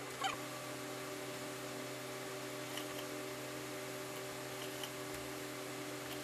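Steady electrical hum, holding several even tones, with a few faint ticks.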